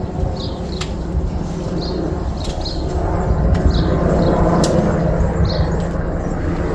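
A small bird chirping, short high calls repeated every half second to a second, over a loud steady low rumble with a few sharp clicks.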